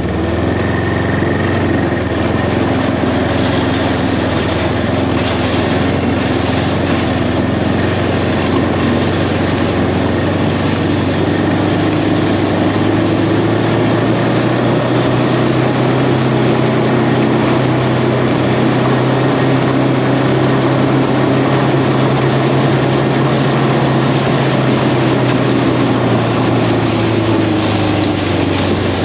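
Ski-Doo Tundra LT 600 ACE snowmobile, a four-stroke three-cylinder, running under way along a trail, over a steady rushing noise. The engine note rises about halfway through, holds, then eases back down near the end.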